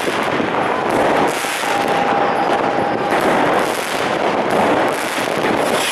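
New Year's Eve street fireworks: a dense, unbroken barrage of firecracker bangs and crackling from many sources at once. A thin steady whistle from a firework joins in about two seconds in and lasts about a second and a half.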